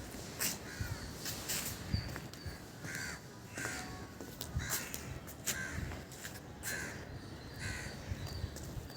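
Birds calling repeatedly, a short call roughly every second.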